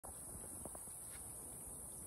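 Steady, high-pitched chorus of night insects trilling, with a couple of faint taps.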